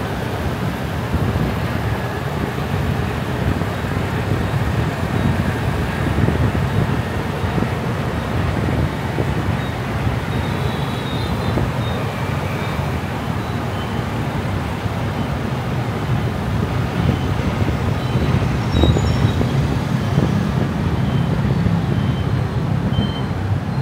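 Steady road and traffic noise of a car driving through city streets, a constant low rumble with no sudden events.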